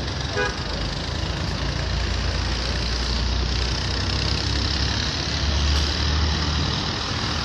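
Motorcycle engines idling, a steady low rumble mixed with street traffic noise.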